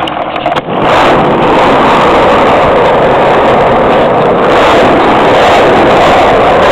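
Skateboard wheels rolling fast on the concrete of a parking-garage ramp, a loud steady rumbling noise. It sets in about a second in, after a few short clicks.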